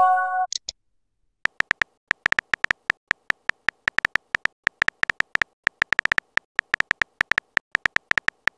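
Texting-app keyboard sound effects: quick, irregular electronic key-tap clicks, about five to six a second, starting about a second and a half in as a message is typed. At the very start a short electronic chime sounds as a message is sent.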